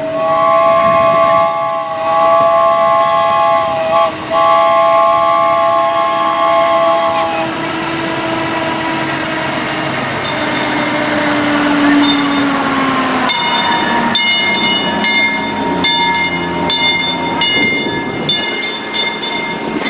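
Farm tour road train, a rubber-tyred tractor dressed as a locomotive, sounding its chord horn in three blasts, the last one longest, while its engine runs closer. About thirteen seconds in, a bell starts ringing over and over, about two strikes a second, as the train passes.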